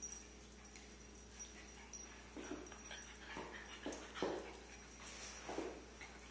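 Dogs vocalizing while they play-fight: about five short, faint vocal sounds between two and six seconds in, the loudest a little past four seconds.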